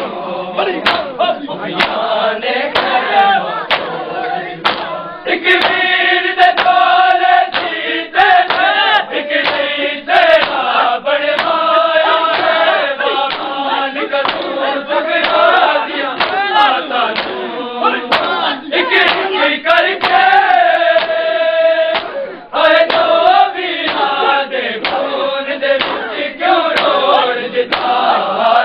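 A group of men chanting a Punjabi noha, a Shia lament, in chorus. Sharp slaps repeat steadily underneath, typical of the chest-beating (matam) that keeps time in a noha recitation.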